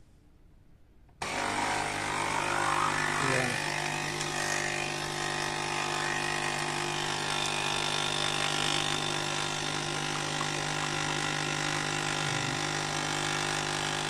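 Nespresso Inissia capsule coffee machine's vibration pump switching on suddenly about a second in and running with a steady buzz as it pushes hot water through the capsule and espresso runs into the cup.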